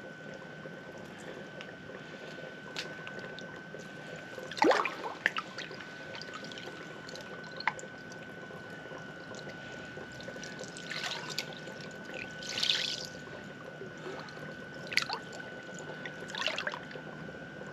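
Water splashing and sloshing in short bursts in an ice-fishing hole as a tired musky is held in the water to revive before release, over a steady faint high whine.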